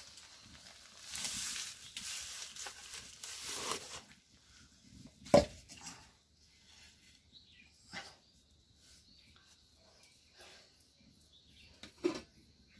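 Cookware being handled as fried fish wrapped in banana leaf is tipped from a wok onto a steel plate: a few seconds of rustling and scraping, then one sharp metal clank a little past five seconds in, and a couple of fainter knocks later.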